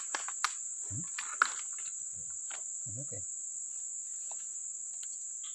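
Steady high-pitched drone of a chorus of insects, with a few sharp clicks and snaps from thin sticks being handled in the first second and a half.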